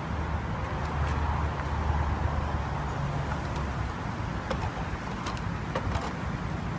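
Steady low rumble of background traffic, with a few light clicks scattered through.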